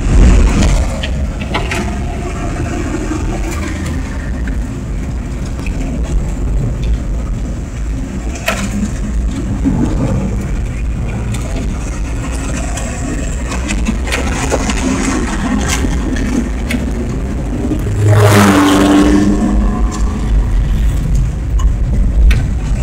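Car engine and road noise heard from inside the cabin while driving, a steady low rumble with a few light clicks and rattles. Near the end the noise grows louder, with a short pitched hum lasting about a second.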